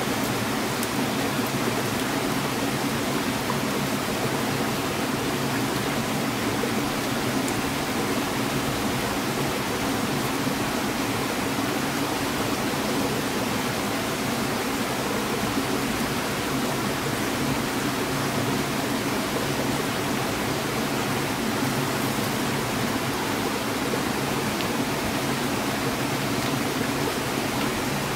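Steady rushing of flowing stream water, constant and unbroken.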